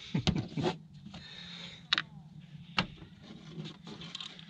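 Hand tools being handled on the alternator bolts: a few sharp metallic clicks and some rubbing as a socket is fitted onto a bolt.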